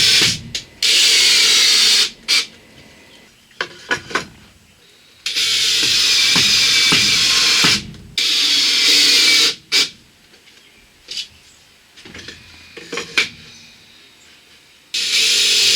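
Power drill driving screws into wood in runs of one to two and a half seconds, the motor whine dropping in pitch as each screw bites and seats. There are short clicks and knocks between runs.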